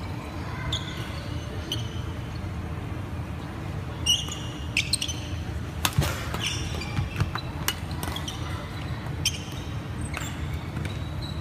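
Badminton rally: sharp cracks of racquets hitting the shuttlecock, coming thickest through the middle of the stretch, mixed with short squeaks of court shoes on the wooden floor over a steady low hum.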